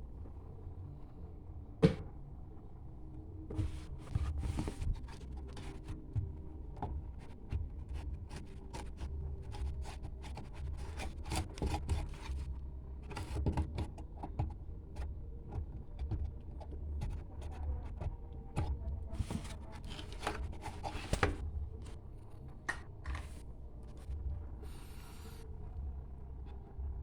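Scattered clicks, knocks and rattles of hand work on washing machine parts, with a few short hissy scrapes, over a steady low rumble.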